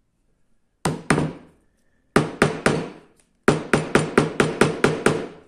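Wooden mallet striking a chisel as it chops down into plywood at the end of a routed slot. There are sharp blows in groups: two, then three, then a quick run of about eight at roughly four a second.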